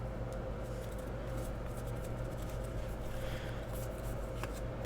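Faint rustling and small ticks of trading cards being handled and sorted, over a steady low electrical hum.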